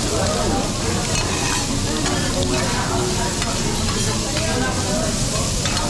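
Food sizzling on a teppanyaki griddle, a steady frying hiss with a few sharp clicks now and then.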